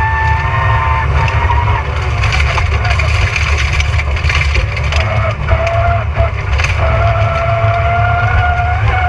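Rally car engine heard from inside the cabin, with a heavy low rumble throughout. The revs drop early on and then build slowly again, with knocks and rattles from the car over the middle of the stretch.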